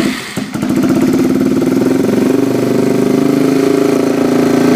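Yamaha TT-R230 dirt bike's single-cylinder four-stroke engine, freshly started and running steadily at idle. The note wavers for the first half second after it catches, then settles into an even idle.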